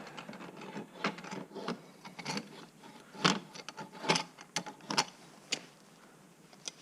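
Irregular metallic clicks and scrapes from an aluminum Ridgid pipe wrench being worked by hand, its stiff, heat-seized adjusting nut and jaw being turned and shifted. About nine separate clicks, uneven in spacing.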